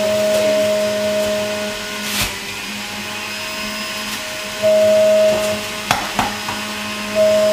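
Electric centrifugal juicer running on its high-speed setting, a steady motor whine that swells louder twice, with a few sharp knocks around two and six seconds in.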